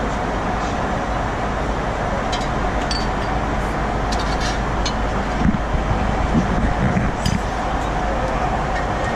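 Steady cabin noise of a Boeing 767-300ER in flight. Over it come light clinks of china bowls and a metal ladle as soup is served from a meal trolley, with a few dull low bumps about halfway through.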